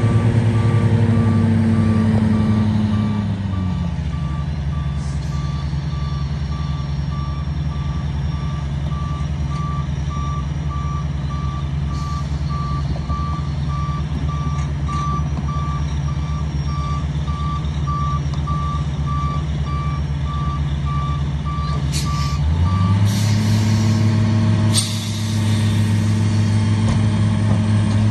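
Dump truck backup alarm beeping steadily over the drone of heavy diesel engines as the truck reverses. About 23 seconds in, the beeping stops, there is a short hiss of air, and an engine speeds up.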